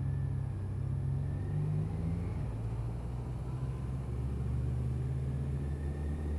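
Motorcycle engine running at a steady, light throttle through a roundabout, a low engine drone over wind and road noise; its pitch rises briefly about two seconds in, then settles.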